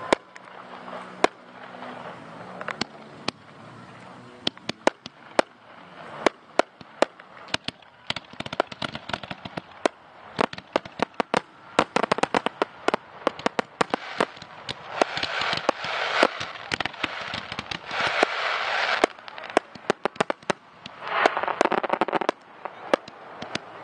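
Aerial fireworks going off: a string of sharp bangs and pops, few at first, then coming thick and fast from about eight seconds in, with stretches of crackling between them.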